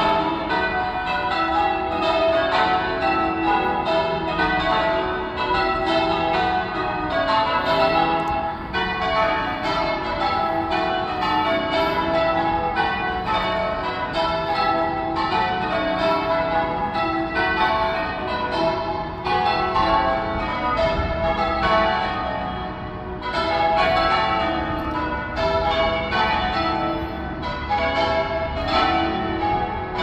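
A peal of church tower bells ringing: a continuous run of strikes at several pitches, each bell ringing on over the next.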